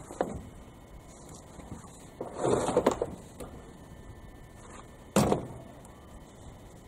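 Metal hand tools clattering and scraping while a cylinder head is being unbolted from a Chevy 283 small-block: a rattling, scraping stretch with several sharp clinks about two seconds in, and one sharp metallic clank with a short ring about five seconds in.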